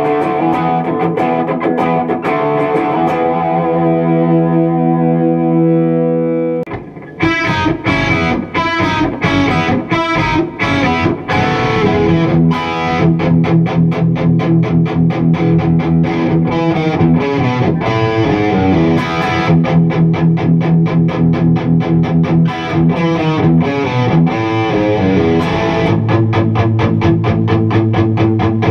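Electric guitar played through an EVH 5150 III LBX-S tube amp head: a held chord rings and fades out over the first several seconds. After a short break about seven seconds in, distorted rock riffing with fast picked notes follows on the amp's own distortion, with the Tube Screamer pedal off.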